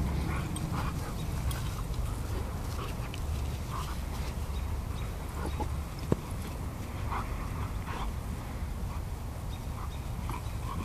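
Two Greater Swiss Mountain Dogs play-wrestling, with short scattered grunts and play noises from the dogs over a steady low rumble. A single sharp click sounds about six seconds in.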